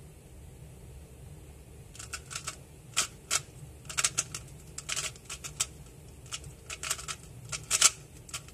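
A MoYu WeiLong WR M 2019 magnetic 3x3 speedcube turned fast by hand, with irregular runs of sharp plastic clicks and clacks starting about two seconds in. The layers are freshly lubricated.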